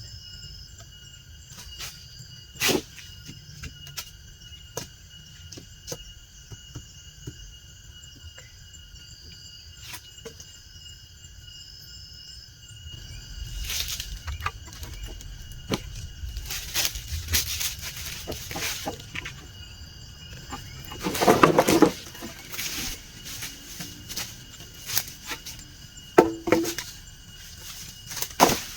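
Steady high drone of forest insects with scattered knocks and clatter from handling wood. The knocks grow busier in the second half, with the loudest cluster about three-quarters of the way through.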